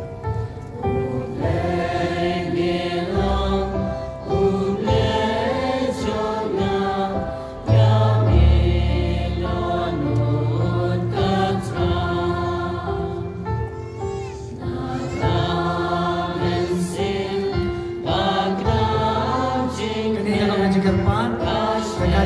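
A choir singing a Khasi hymn, with an accompaniment holding long low bass notes under the voices.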